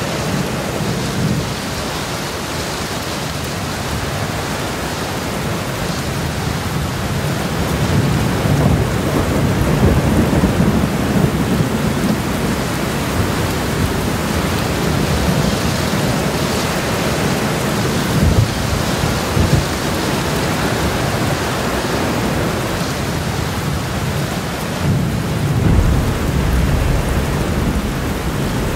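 Thunderstorm: steady heavy rain with rolling thunder that swells up several times, deepest around a third of the way in and again near the end.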